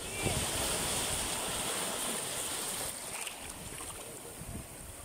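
Shallow sea surf washing in over a rocky reef flat, a steady foaming hiss of water. It eases a little about three seconds in.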